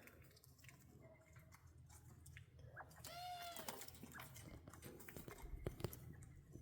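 Quiet aviary with faint scattered clicks and rustles of small birds pecking at seed and feed, and one short arched call about three seconds in.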